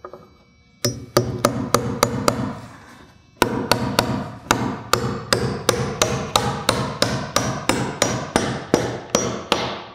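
Claw hammer driving a nail at an angle through a wooden rafter into the top plate (toenailing): a few quick taps to start the nail, a pause of about a second, then a steady run of about twenty blows, roughly three a second.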